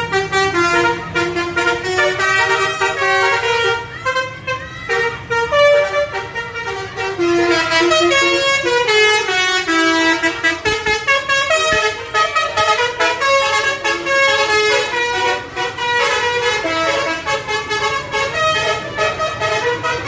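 Telolet basuri musical air horns of passing tour buses playing a tune, note after note in quick steps up and down, over the low rumble of the bus engines.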